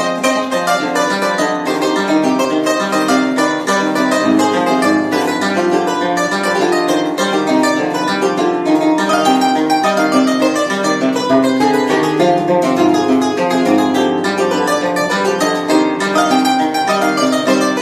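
Wooden folk harp played solo: a quick run of plucked melody notes over steady lower bass notes.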